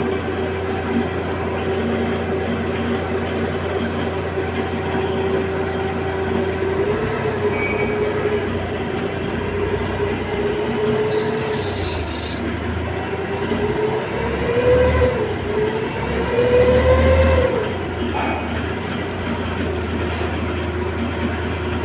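A heavy diesel engine running steadily. Its pitch rises slightly about seven seconds in, and it is revved up twice near the end before dropping back.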